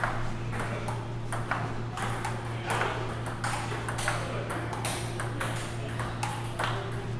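Table tennis rally: the ball clicking off the paddles and the table in an even rhythm, about two hits a second, over a steady low hum.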